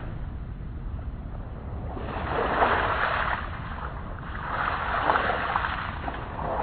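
Surf breaking and washing up the beach in two swells, one about two seconds in and another about four and a half seconds in, over a steady low wind rumble on the microphone.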